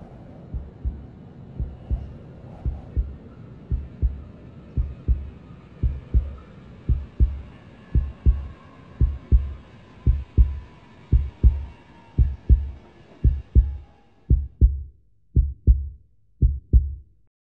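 Heartbeat sound effect: low double thumps about once a second over a faint background hum. The hum drops away about fourteen seconds in, and the beats grow further apart and stop near the end.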